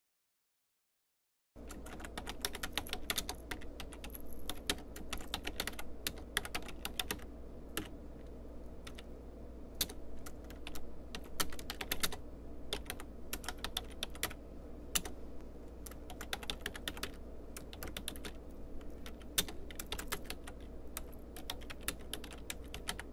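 Typing on a computer keyboard: quick, irregular keystroke clicks, starting about a second and a half in, over a steady low hum.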